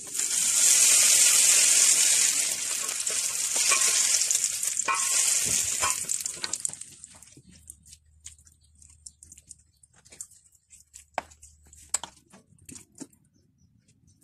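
Hot tempering oil (baghar) with fried ginger and garlic sizzling as it is poured onto cooked mustard greens, the hiss dying away after about six seconds. Then faint clicks and scrapes of a spoon stirring it into the dish.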